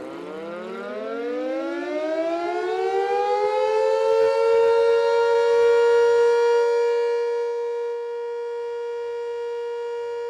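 Civil defense warning siren winding up from a low pitch, rising over about four seconds, then holding a steady high tone.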